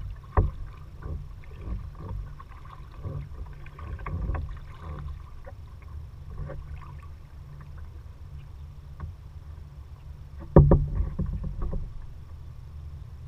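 Kayak paddling: the paddle splashing and dripping with scattered clicks. A sharp knock comes just under half a second in, and a louder one about ten and a half seconds in, over a steady low rumble.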